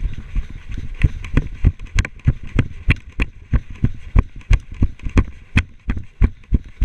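Running footsteps, a steady train of heavy thumps about three a second, picked up by a helmet-mounted camera.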